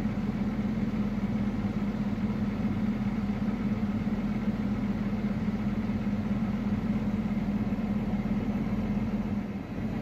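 Engine of a farm vehicle idling: a steady, even low hum.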